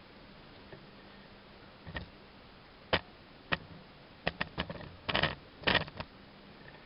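Handling noise from a cardboard toy display box: a string of sharp clicks and light knocks, several spaced single ones at first, then a quick run of three and two short scraping rustles, with a last click near the end.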